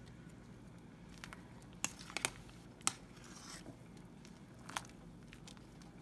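A few short, sharp taps and clicks of a spoon against a stainless steel pot of chopped vegetables in water, over a low steady hum.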